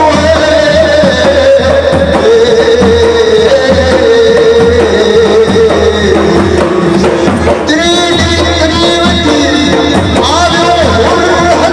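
Procession music: a sung melody in long, wavering held notes over steady drumming, with a new phrase starting about two-thirds of the way in and again near the end.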